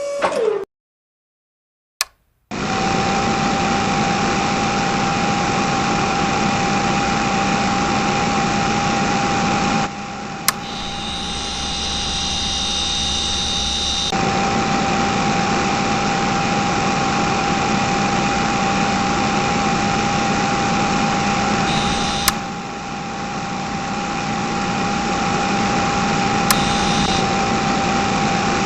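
Small electric motor of a model drilling rig running steadily, a noisy hum with one steady high whine. It drops out briefly near the start and changes character abruptly several times.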